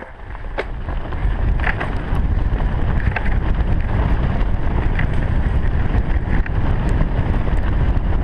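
Wind buffeting the microphone of a camera on a mountain bike descending a snowy trail at speed: a loud, low rumble that builds over the first second or two and then holds, with a few light clicks.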